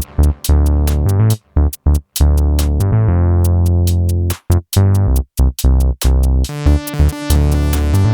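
Electronic background music: a drum machine beat with heavy synth bass, sharp drum hits and a falling synth sweep, and a denser part coming in near the end.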